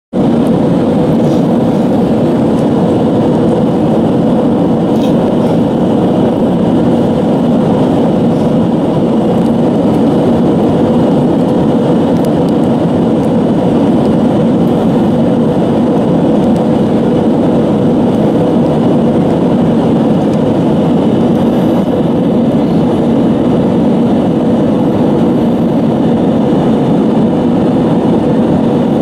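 Steady jet engine and airflow roar inside the cabin of an Airbus A321 in flight, with a low steady hum under it.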